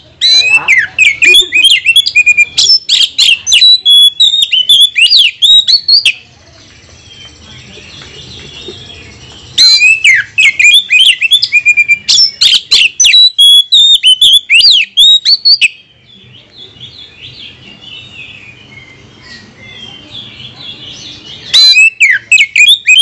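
Oriental magpie-robin (kacer) singing: loud spells of rapid, sharply gliding whistles and chatter, with quieter chirping in the two gaps between them, about six seconds in and again about sixteen seconds in.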